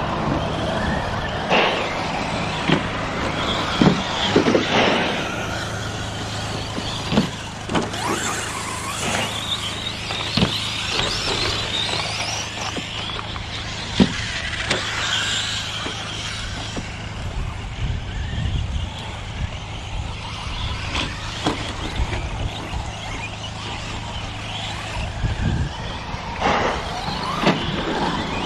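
Electric 1/10-scale short-course RC trucks racing on a dirt track: brushless motors whine up and down, with sharp knocks scattered throughout, over a steady low hum.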